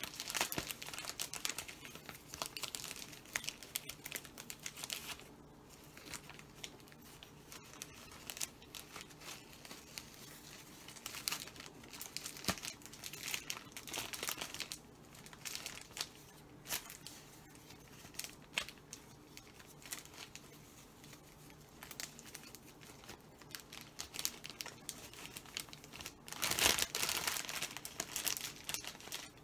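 Clear plastic treat bag crinkling and rustling in irregular bursts as its gathered top is handled and a ribbon is tied round it, loudest near the end.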